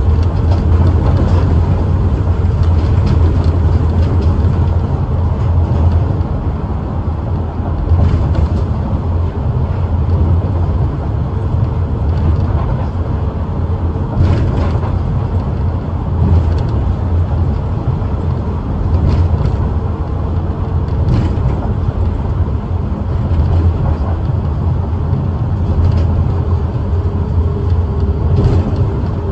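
Osaka Metro New Tram automated guideway car running along its elevated guideway, heard from inside: a steady deep rumble of rubber tyres on concrete with a thin hum over it and a few light clicks.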